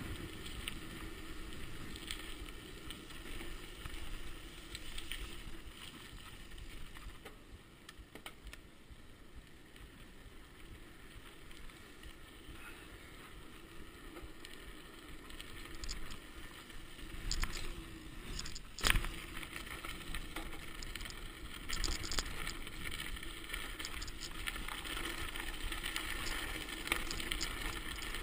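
Mountain bike rolling downhill at speed: steady tyre and riding noise with scattered clicks and rattles from the bike, the sharpest knock about two-thirds of the way through. The noise grows louder and rougher near the end as the bike leaves the paved lane for a dirt track.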